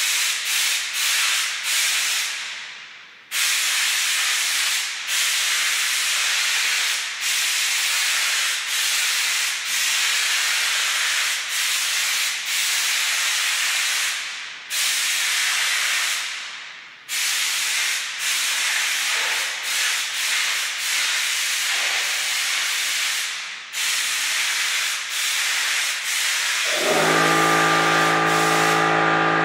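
Compressed-air paint spray gun hissing as it sprays, cut off and restarted several times, the hiss fading away before some of the breaks. Near the end a steady hum of several held tones joins in under the hiss.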